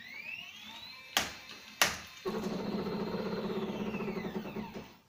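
NEMA 17 stepper motor driving a 3D-printed cycloidal gearbox under a 1.9 kg load on a 10 cm arm, a test it fails: a whine rising in pitch as the motor speeds up, two sharp clacks, then a louder buzzing hum from about two seconds in, and the whine falling in pitch as it stops near the end.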